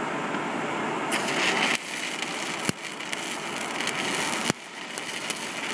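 Stick (arc) welding: a steady crackling hiss that grows stronger about a second in, broken by sharp clicks and sudden drops in level a few times.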